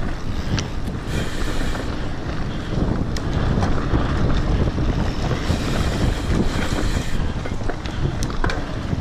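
Mountain bike riding fast over a dirt trail: steady wind buffeting the microphone over the rumble and rattle of tyres and frame on rough ground, with a few sharp clicks as the bike jolts.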